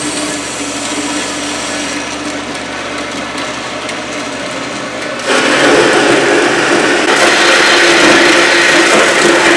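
Horizontal metal-cutting band saw running with its blade at speed, a steady hum with a tone through it. About five seconds in, the sound jumps louder and harsher as the blade bites into the 3/8-inch steel flat bar and starts cutting.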